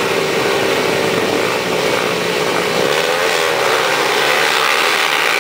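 A row of motocross motorcycles revving their engines together at the start gate: a dense, steady engine noise, with one engine revving up about three seconds in.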